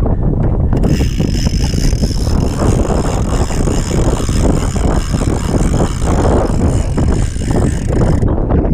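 Strong wind buffeting the microphone with a loud, steady rumble. A steady high hiss joins about a second in and stops near the end.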